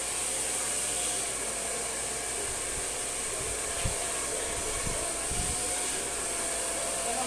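Handheld hair dryer running steadily as hair is blow-dried: a constant rushing blow with a strong high hiss, and a few low bumps around the middle.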